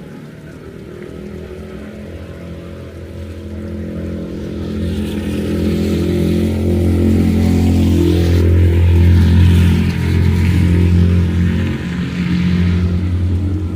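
A motor vehicle passing close by: a steady engine hum that grows louder, is loudest about nine seconds in, then fades, with a hiss in the middle stretch as it goes by.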